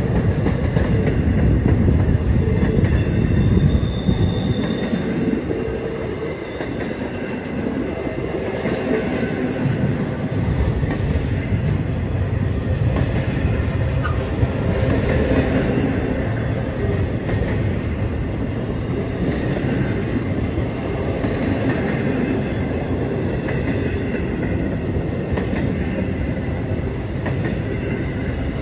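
Empty intermodal spine cars of a freight train rolling past on a curve, steel wheels running on the rails, a little louder in the first few seconds. A brief high wheel squeal comes about three seconds in.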